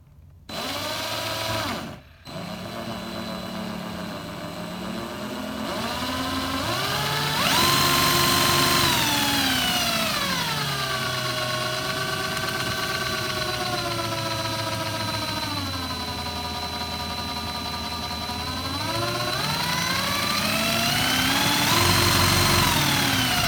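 Power drill driving a Lego chainsaw's crankshaft and chain mechanism. The motor whine starts, stops briefly about two seconds in, then climbs to full speed, drops back to a lower steady speed, and climbs again near the end.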